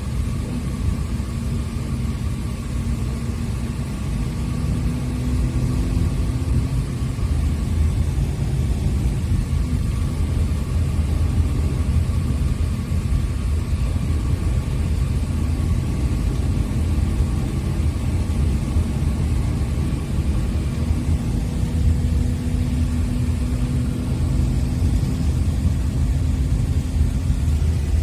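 Bus running along a road, heard from inside the cabin: a steady low engine and road rumble with a faint hum, a little louder after the first few seconds.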